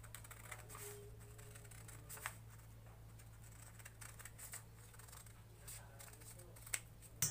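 Scissors snipping through manila paper, a series of faint short cuts along a curved pattern line, with a sharp click near the end.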